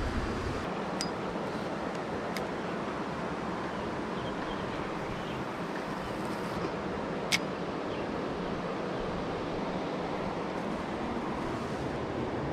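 Steady rushing of a fast-flowing river, with a few sharp clicks, the loudest about seven seconds in.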